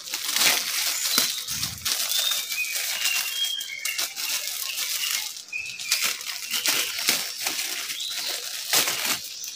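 Clear plastic bag crinkling and rustling as a new TV flyback transformer inside it is handled and turned over. A small bird chirps a few times in the background.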